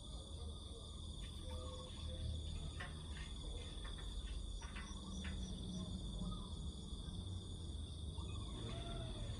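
Crickets chirring, a constant high trill, over a steady low rumble, with a few faint clicks and short chirps.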